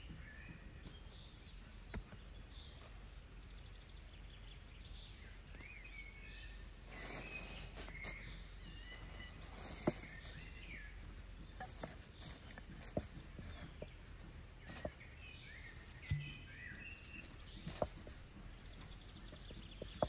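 Outdoor ambience: birds chirping now and then, with scattered sharp clicks and knocks and a short stretch of hiss about seven seconds in.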